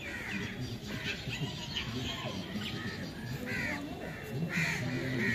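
Birds calling again and again in short calls, over a low murmur.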